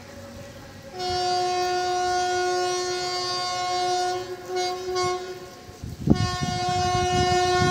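Horn of a WAG9H electric locomotive hauling a BCNA freight rake: a long steady blast of about three seconds, a short toot, then another long blast. A sharp thump sounds just as the last blast starts.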